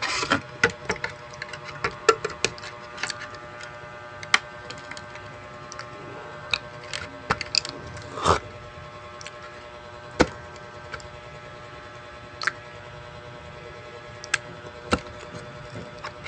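Close-miked scattered clicks and taps of teeth biting and gnawing at the cap of a small plastic drink bottle, with a slightly longer crackle a little after eight seconds.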